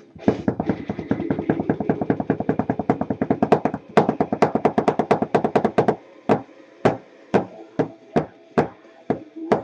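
Loud rapid knocking or tapping on a hard surface, about ten knocks a second for roughly six seconds, then slower single knocks about twice a second. A song plays quietly underneath.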